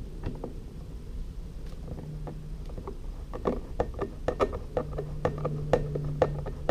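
Irregular clicks and knocks of hardware and tools on a kayak's seat fittings, coming thicker in the second half, over a low steady hum that comes and goes.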